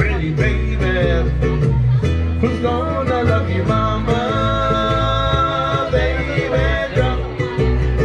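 Live Hawaiian band playing a passage between sung lines: an upright bass plays a steady low line under a plucked string instrument's chords and melody, with one note held for a couple of seconds around the middle.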